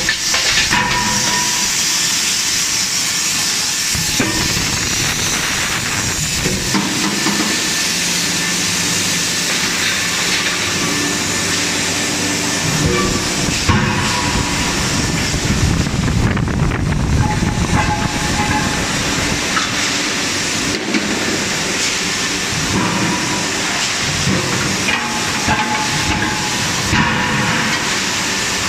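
Steady forge-shop machinery noise: a loud continuous hiss with low rumble from the hydraulic die forging hammer and its line, broken by a few scattered knocks.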